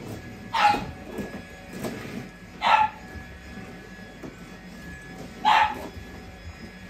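A dachshund gives three short, sharp barks, a couple of seconds apart.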